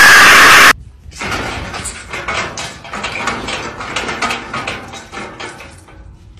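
A very loud, harsh burst of noise lasting about a second. Then, for about five seconds, an irregular run of clicks and rattles as a cat scrabbles up the bars of a metal gate.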